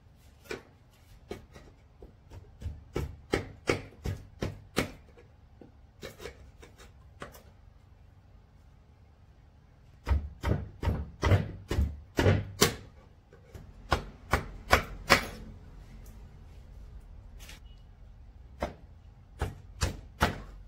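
Sharp knocks of a hand tool on wood, in runs of several strikes about two to three a second, with the heaviest, deepest blows about ten to thirteen seconds in.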